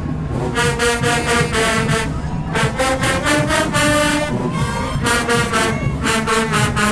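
Marching band brass and drums playing loud, with short punchy repeated brass hits broken by longer held chords.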